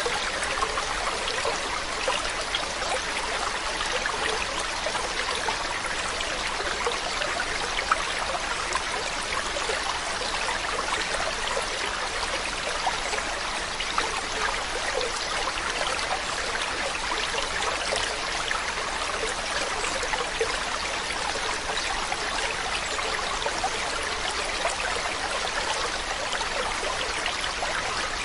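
A stream running steadily, water babbling and trickling over stones.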